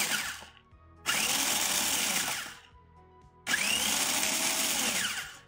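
Small electric food chopper pulsed in short bursts to crush pretzel sticks into crumbs. One burst tails off at the start, then come two more pulses of about a second and a half each, the motor's pitch rising as it spins up and falling as it stops.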